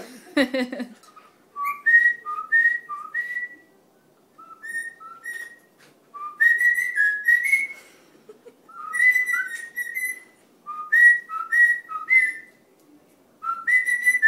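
A man and his pet cockatiel whistling a tune together. It comes in phrases of paired notes, a lower note stepping up to a higher one, with short pauses between the phrases.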